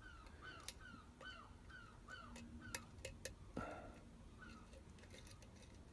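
Near silence with a few faint, sharp clicks of a lock pick working the pins of a challenge lock under tension, behind a faint chirp that repeats about two or three times a second.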